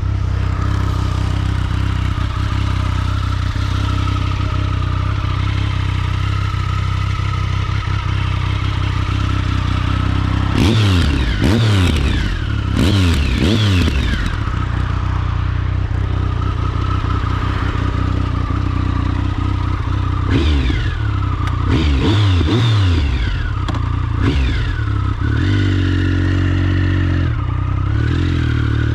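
Triumph Speed Triple 1050's three-cylinder engine running at a steady note, then revved in quick surges that climb and drop several times about ten seconds in, and again around twenty seconds in.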